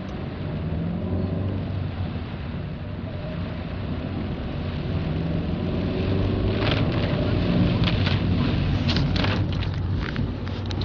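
Steady low engine hum, as from a vehicle running, with a few sharp taps or clicks in the second half.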